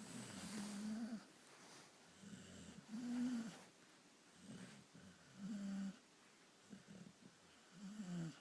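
Repeated snoring during a nap: about six or seven short snores in a row, each a brief humming tone, the loudest about three seconds in.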